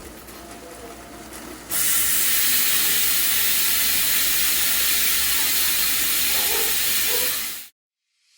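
A steady loud hiss that starts suddenly about two seconds in and cuts off abruptly near the end.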